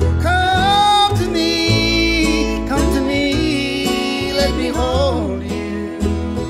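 Old-time string band music: an instrumental passage with guitar, a melody line sliding and wavering in pitch, and a steady bass underneath.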